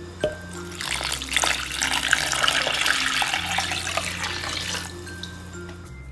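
Rice-washing water poured from a glass measuring jug into a glass bowl of cutlassfish pieces, splashing and filling for about four seconds starting about a second in, over background music.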